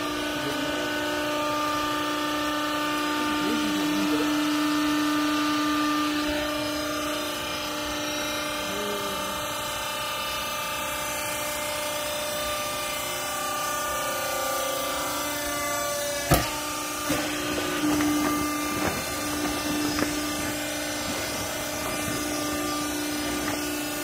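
Vertical hydraulic clothing baler's pump and electric motor running with a steady hum, with a sharp clunk about sixteen seconds in and a few lighter knocks after it.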